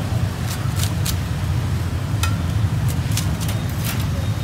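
Cleaver cutting through Vietnamese roast pork (heo quay) with crisp crackling skin on a wooden chopping block: a string of uneven sharp crunches and knocks, about eight in four seconds. A steady low rumble runs underneath.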